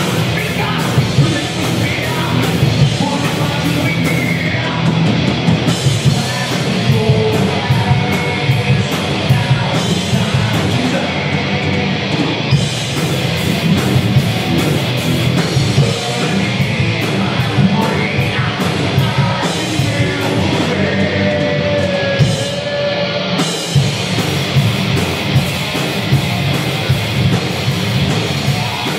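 Heavy metal band playing live: distorted electric guitars, bass and a drum kit, with vocals over the top.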